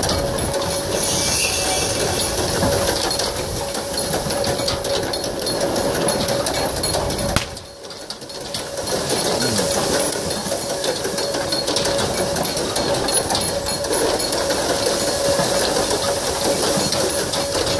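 Wooden gearing of an ox-driven Persian wheel rattling and clattering steadily as a pair of oxen drive it round at speed. The sound drops away briefly about halfway through.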